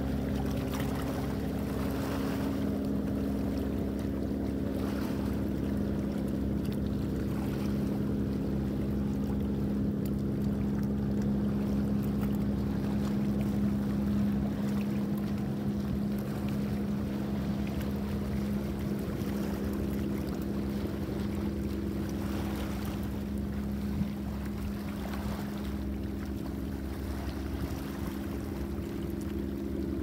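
A boat engine running steadily, a constant hum, with wind and water noise behind it.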